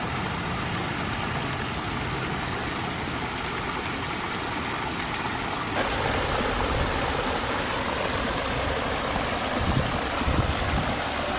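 Water running and splashing down a pondless waterfall's rock stream: a steady rush whose tone shifts slightly about six seconds in.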